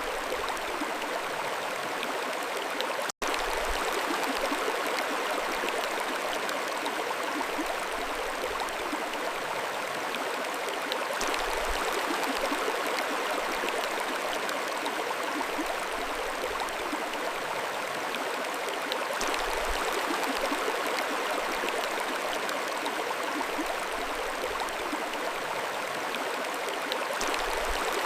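Mountain stream flowing with a steady, even rush of water. About three seconds in there is a split-second dropout.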